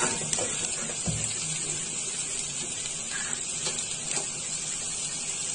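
Boiled potato stuffing frying in oil in a pan, a steady sizzling hiss, with a few faint knocks.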